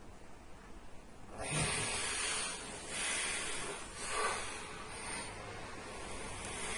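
A sleeping person's snoring breath: after a quiet first second and a half, a short low snort, then a long hissing, airy breath that swells and fades several times.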